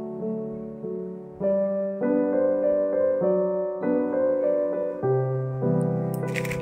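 Piano background music, gentle sustained notes changing every second or so. Near the end, plastic packaging crinkles as a poly mailer bag is handled.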